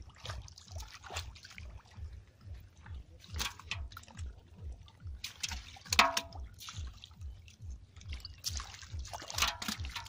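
Shallow water splashing and dripping as fish are caught by hand and dropped into a metal pot, with several sharp splashes and slaps, the loudest about six seconds in. A low, even throb repeats underneath throughout.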